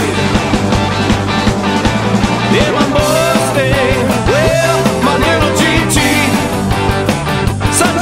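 Rock music with a steady beat and a lead line of bending notes.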